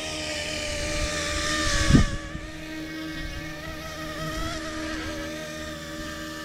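Small RC scale UH-60 Jayhawk helicopter's electric motor and rotors whining steadily as it flies low toward and past, getting louder up to a peak about two seconds in, where a brief low buffet hits the microphone as it passes closest, then holding steadier as it moves away.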